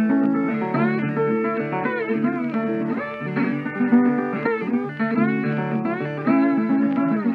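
Background music: a plucked guitar tune with notes that bend and slide.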